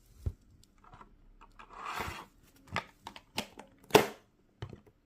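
Cardboard and plastic toy packaging being handled: a scraping rustle about two seconds in, and several sharp clicks and knocks, the loudest about four seconds in.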